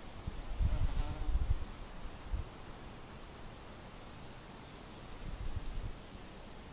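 Short, thin, high-pitched calls of small wildlife, several in the first few seconds and a few faint chirps later. Low thumps and rumbles from handling or wind on the microphone come in twice and are the loudest part, with a click about a second in.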